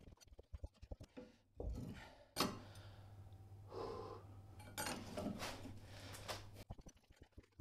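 A man breathing hard and sighing several times, with faint knocks and clinks before the breaths start.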